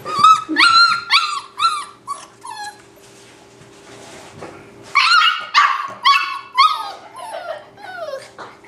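Yellow Labrador retriever puppy crying while shut in a pet crate: high-pitched yelps and whines in two runs, the second starting about five seconds in after a quieter stretch.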